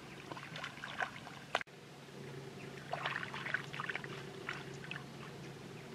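Shallow muddy water splashing and sloshing in short, irregular bursts as hands grope through it, with a brief break about a second and a half in. A faint steady low hum runs underneath.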